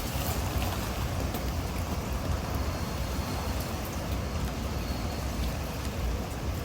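Typhoon wind and rain: a steady rush of rain with scattered faint drip taps over a low wind rumble on the microphone.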